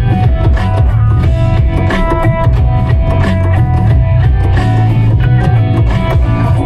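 Music with guitar and a steady drum beat.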